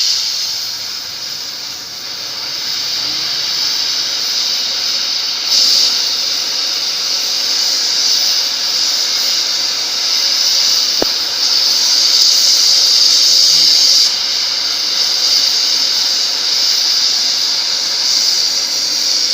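Steady hiss of the gas cutting torch flame on a CNC flame-cutting machine. It steps up louder about five seconds in and eases back a little about two-thirds of the way through, with a single sharp click about eleven seconds in.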